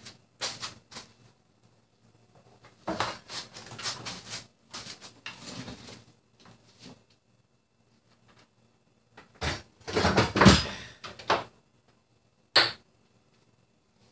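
Irregular knocks, clatter and scraping from hands-on demolition work in a kitchen, with a longer, louder burst of handling noise about ten seconds in and a single sharp knock near the end.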